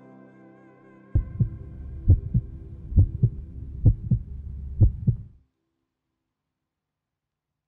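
Heartbeat sound effect: five double thumps (lub-dub), just under a second apart, over a low hum, cutting off suddenly. Before it, the last of some soft music fades away.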